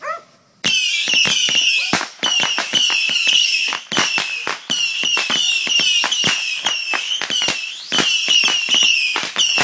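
Fireworks strapped to a toy RC truck going off: a rapid, continuous run of crackling pops mixed with repeated high whistles, starting about half a second in.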